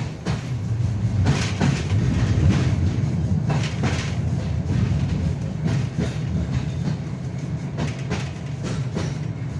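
KTM tram running along the track, heard from inside the car: a steady low rumble of wheels and running gear, with irregular sharp knocks every second or so.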